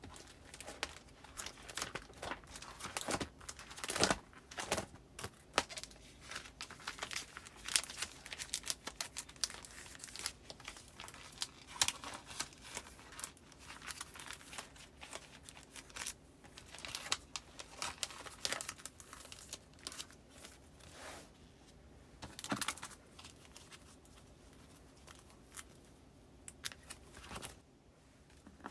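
Postcards and paper goods being handled and filed into plastic file pockets: irregular crinkling and rustling with small sharp crackles, settling into a quieter stretch near the end.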